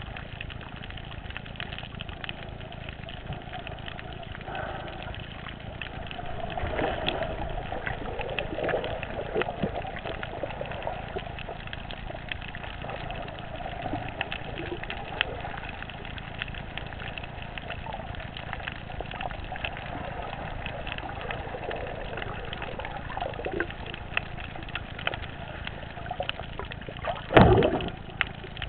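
Muffled underwater noise heard through a GoPro Hero's waterproof housing: a steady low rumble with a constant scatter of faint clicks and crackles. A short loud rush near the end.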